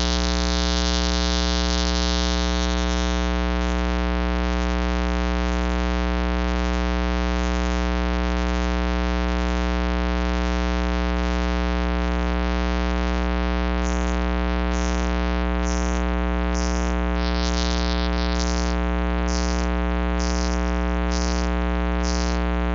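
Loud, steady electrical hum with a stack of higher overtones, a fault in the live stream's audio that viewers call bad sound. From about fourteen seconds in, a hiss pulses over it roughly once a second.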